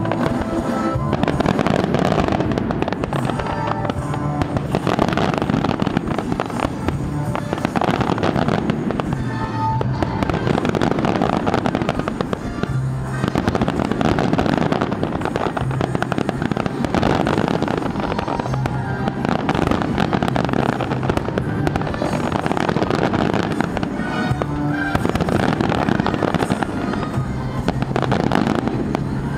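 Aerial fireworks display going off continuously: dense bangs and crackling from bursting shells, with a music soundtrack playing alongside.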